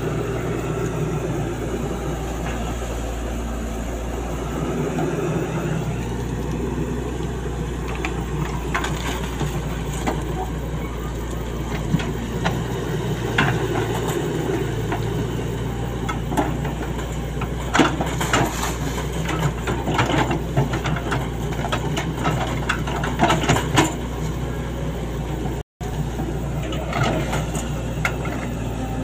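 Sany SY135F hydraulic excavator's diesel engine running steadily under work, with scattered knocks and clattering from the bucket and material, thickest in the second half. The sound cuts out for an instant near the end.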